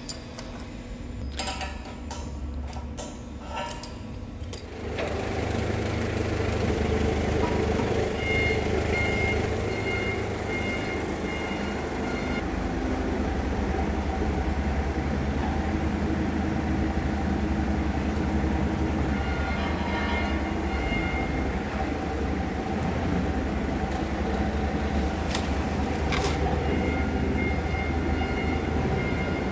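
A few seconds of metal clanks and knocks, then a heavy machine starts up about five seconds in and runs with a steady low drone, with a faint pulsing high tone at times.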